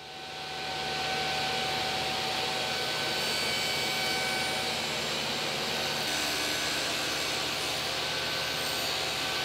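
Table saw motor and blade coming up to speed in the first second, then running steadily as a plywood box is fed over the blade.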